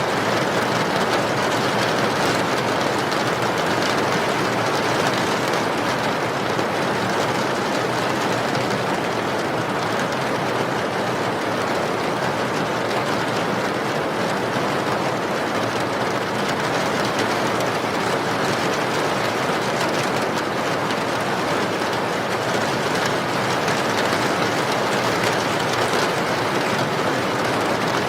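Steady rain falling: an even, unbroken hiss with no let-up.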